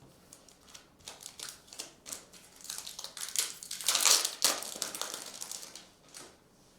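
Foil wrapper of a trading-card pack crinkling as it is handled, in a run of rustles that is loudest about four seconds in.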